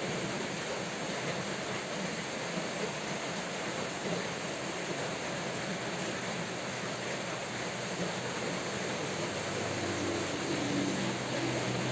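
Steady rain falling, an even hiss. Near the end a low engine hum comes in and grows louder.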